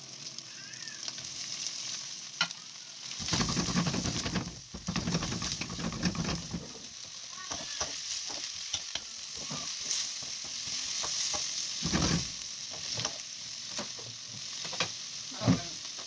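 Beef chunks, onions and green peppers frying in a hot wok: a steady sizzle that swells louder for a few seconds about three seconds in as the meat goes into the pan, then a wooden spatula stirring and scraping, with a few sharp knocks against the wok.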